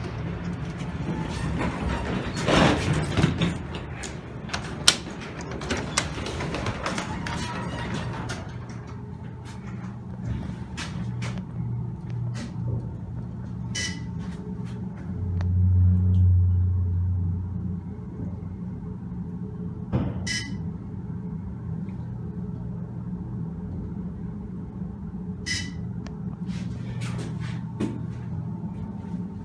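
Passenger elevator travelling between floors: the doors slide shut at the start, then the car and its drive give a steady low hum that swells for a couple of seconds about halfway. Three short electronic chimes sound about five or six seconds apart as floors are passed.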